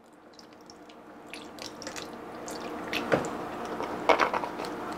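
Coconut milk pouring from a carton into a plastic Vitamix blender container, the pour getting louder as it goes.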